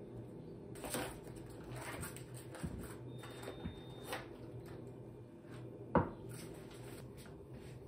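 Foil-lined butter wrapper crinkling and rustling as a block of butter is peeled open by hand, with a single sharp knock about six seconds in.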